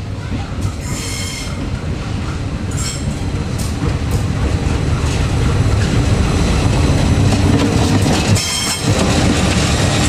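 KAI diesel-electric locomotive approaching and passing close by: a low engine drone and the rumble of its wheels on the rails grow louder over the first half, then hold. There are sharp clicks from the wheels over rail joints and a few brief high wheel squeals.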